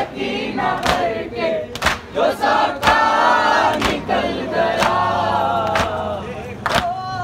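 A group of men chanting a Shia mourning noha together, with loud slaps of hands striking chests (matam) in unison about once a second, keeping the beat.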